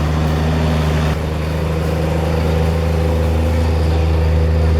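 Heavy vehicle engine running steadily under load, dipping slightly about a second in and then slowly building again.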